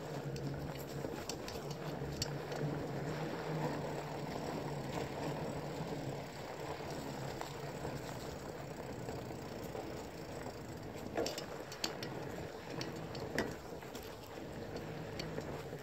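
Mountain bike riding fast on a dirt single-track trail: a steady rush of tyres rolling over the dirt and moving air, with the bike rattling and a few sharp knocks over bumps, the loudest about eleven and thirteen seconds in.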